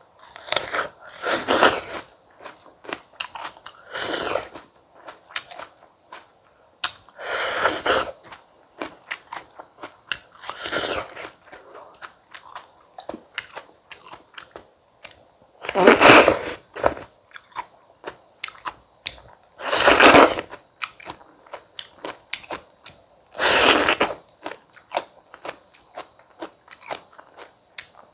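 A person biting into and chewing crisp stone fruit: a loud crunchy bite every few seconds, seven in all, with small chewing clicks between them.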